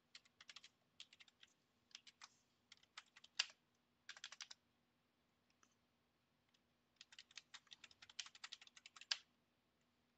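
Typing on a computer keyboard, entering a username and password at a login prompt. There are short runs of keystrokes, a pause of about two seconds midway, then a quicker, denser run near the end.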